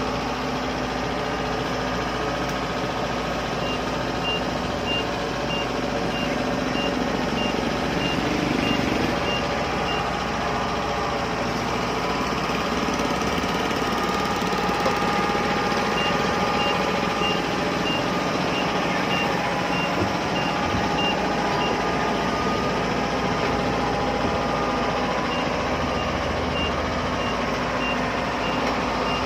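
Kubota DC-70 combine harvester's diesel engine running steadily while the machine is driven. Over it, a high-pitched alarm beeps in three runs of quick, evenly spaced beeps, a little under two a second.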